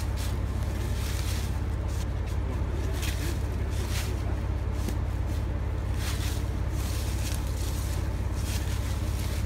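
A steady low rumble, with a few brief rustles of dry leaves and cloth underfoot.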